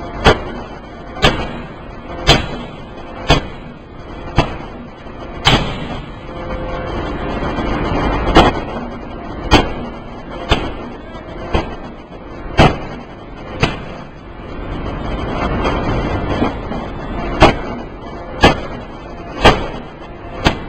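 3-tonne open die forging hammer striking a workpiece with sharp blows about once a second, in three runs of six, six and three blows with short pauses between them, over the steady running noise of the forging machinery.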